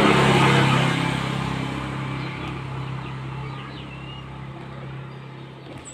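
A passing motor vehicle's engine, loudest about half a second in and then fading steadily away. Faint bird chirps come in the middle.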